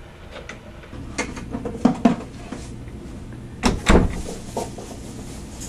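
An interior door being shut: a couple of light knocks about two seconds in, then a heavier double thump about four seconds in, the loudest sound.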